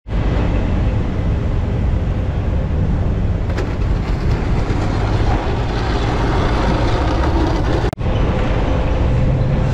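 Busy multi-lane highway traffic passing steadily, a dense low rumble of engines and tyres. The sound cuts out for a moment about eight seconds in, then the traffic noise resumes.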